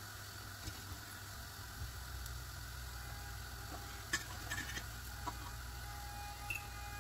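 Steady low kitchen hum, with a few light clicks of a metal fork against a ridged grill pan about four seconds in as a kabab is lifted off.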